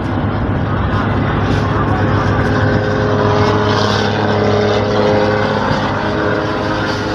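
Passenger bus engine running hard at road speed, heard from inside the cabin: a loud, steady drone with a fainter steady whine above it, mixed with road and wind noise.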